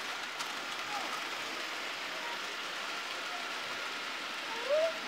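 Model trains running on a layout: a steady hiss of wheels on track with a faint, even motor whine. A brief voice is heard near the end.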